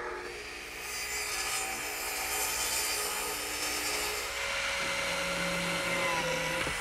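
Radial arm saw running and cutting grooves across a pine panel, then, about four and a half seconds in, a handheld plate joiner's motor running as it cuts into pine, with a lower steady hum.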